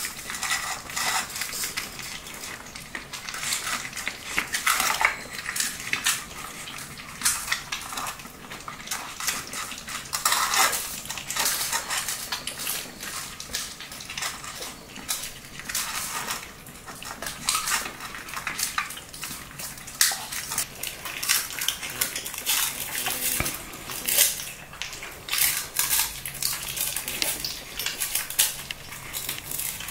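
40-day-old Shih Tzu puppies eating dry kibble from stainless steel bowls: irregular clinks and scrapes of kibble and teeth against the metal, with chewing.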